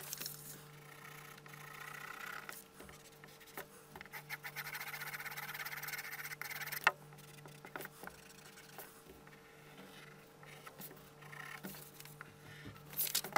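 Graphite pencil shading on paper: soft scratchy back-and-forth strokes in two stretches of about two and three seconds, with a sharp tap just before the middle and lighter scattered scratches after.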